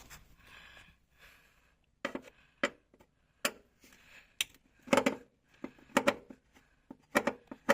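About a dozen irregular sharp clicks and knocks of a hand tool and small metal parts, starting about two seconds in, as a screw is undone beside the fuel pump wiring connector.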